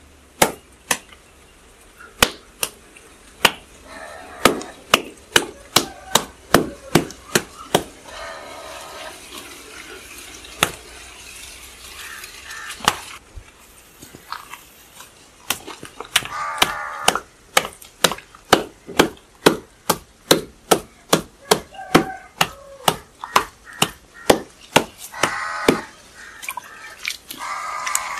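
Traditional hand-spun potter's wheel turning on its pivot while clay is thrown: a run of sharp wooden clicks, roughly two a second, irregular at first and steadier and closer together in the second half.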